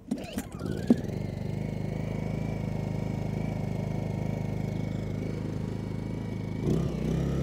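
Portable generator starting up: a short irregular rattle as it fires and catches within about a second, then its engine running steadily. Near the end the engine note shifts and grows a little louder.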